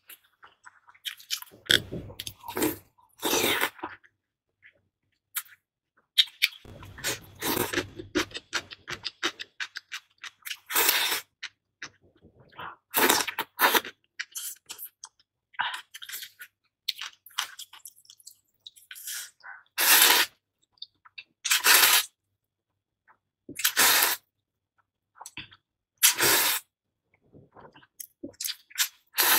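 Close-miked eating: bites and crunchy chewing of watermelon and other food in separate mouthfuls, with slurping of noodles near the end.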